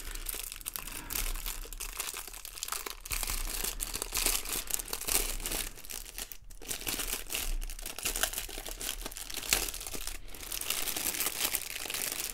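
Clear plastic packaging crinkling and rustling as it is worked open by hand around a bundle of small bags of diamond painting drills. The rustle goes on irregularly, with a couple of brief pauses.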